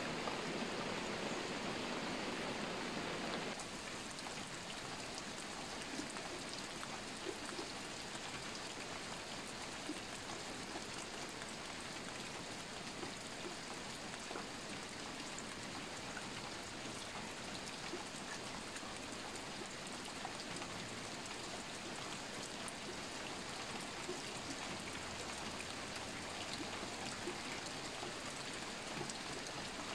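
Steady rain falling, with many individual drops heard as fine ticks. The hiss is louder and fuller for about the first three and a half seconds, then drops abruptly to a slightly quieter, even level.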